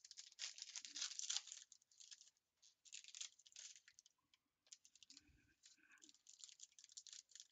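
Faint crinkling and tearing of trading-card pack wrappers being handled and opened, in short scattered rustles with a brief lull in the middle.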